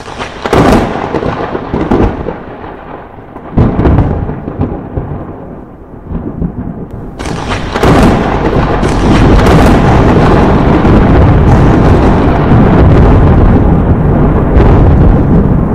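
Thunder: a few sudden cracks, each fading into a rumble, in the first four seconds, then continuous loud rolling thunder from about seven seconds in.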